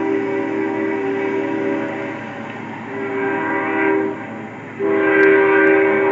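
Nathan K5HL five-chime air horn on a Union Pacific GE diesel locomotive sounding for a grade crossing: a blast that ends about two seconds in, a shorter blast, then a louder long blast starting near five seconds in.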